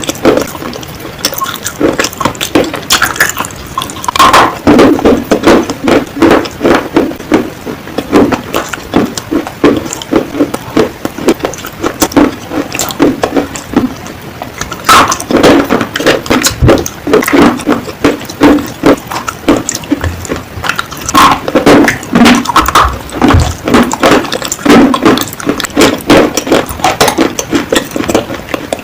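Close-miked crunching of baked Punjab clay (panjab ki mitti) being bitten and chewed: dense runs of crisp crackling crunches, one after another.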